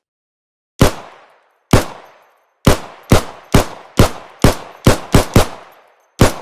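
STI Perfect 10 10mm pistol firing about eleven shots, each a sharp report with a short ringing tail. Two single shots about a second apart, then a faster string of roughly two shots a second, then one last shot near the end.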